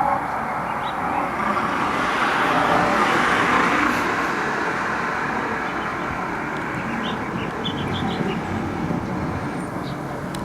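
Road traffic: continuous tyre and engine noise from passing vehicles that swells as one goes by, then eases. A few short high chirps come in the second half.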